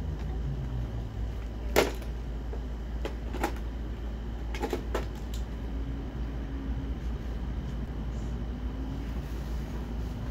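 A few sharp knocks and clatters of things being handled and moved, the loudest about two seconds in and a small cluster a second or so later, over a steady low hum.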